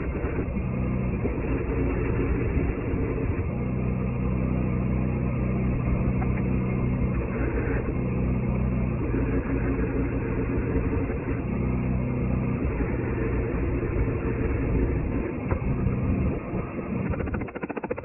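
An engine running steadily at a constant speed, which drops away abruptly near the end.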